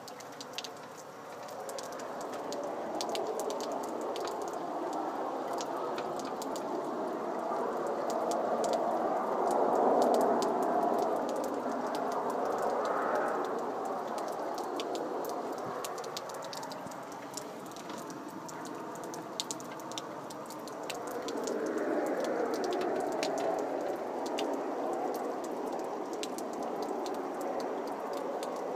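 An unexplained drone, noisy and wavering, swelling to its loudest about ten seconds in and again after about twenty-two seconds, with a crackle of small clicks over it.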